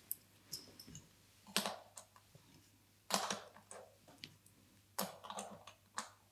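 Soft, irregular clicks and knocks of Montessori fraction-circle pieces being handled and set back into their inset frame, about nine small taps spread over a few seconds.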